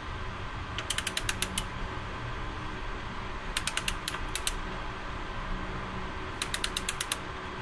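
Ratchet wrench clicking in three quick runs of several clicks each as the oil drain plug is tightened, its sealing washer squashing down.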